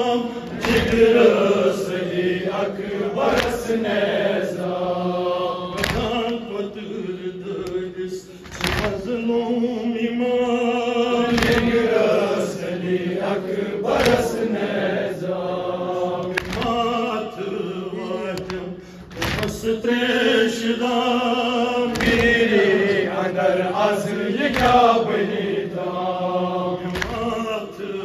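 Men chanting a nauha, a Shia mourning lament, in a slow sung melody with long held notes; a lead voice is joined by others. A sharp hand strike lands every two to three seconds, the beat of matam chest-beating.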